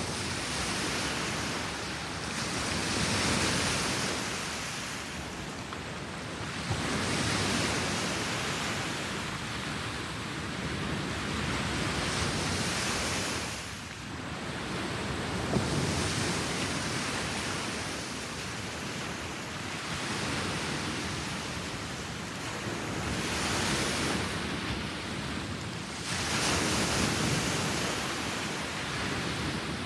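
Small sea waves breaking and washing up a pebble beach, the surf swelling and ebbing every few seconds.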